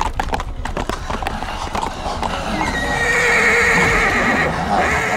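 Horse's hooves clattering at a gallop on pavement, then the horse neighing for about two seconds, louder than the hoofbeats.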